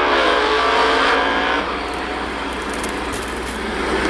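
Drag race car engines revving at the starting line during burnouts, the revs sweeping up and down, then dropping to a lower, rougher sound about a second and a half in.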